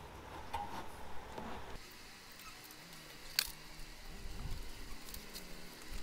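A metal hive tool and wooden hive frames clicking and scraping as the frames are worked loose from a beehive box, with one sharp crack about halfway through. A faint low hum, likely bees, fades out in the first two seconds.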